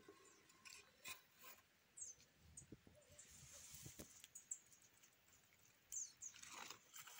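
Near silence: faint rustles and ticks, with a few brief, faint high chirps.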